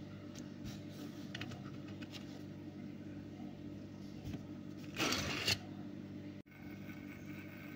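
Faint steady hum with a few light clicks of hands handling a diecast toy car; about five seconds in, a brief rustle as the car is picked up off the backdrop. After a sudden cut near the end, the faint steady whirr of a small motorised display turntable.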